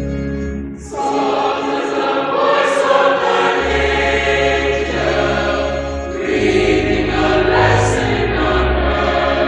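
Mixed school choir singing a hymn with keyboard accompaniment. The keyboard plays alone for about the first second, then the voices come in together.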